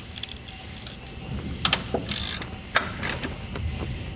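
Hand ratchet clicking in short, irregular strokes as it snugs down the alternator mounting bolts, with a longer run of clicks a little after two seconds in.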